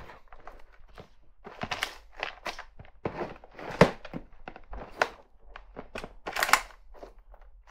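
Plastic storage drawers being pulled open and pushed shut, and a drawer of packaged watch straps rummaged through: scattered knocks, scrapes and rustling, with sharper knocks near the middle and again about two-thirds of the way in.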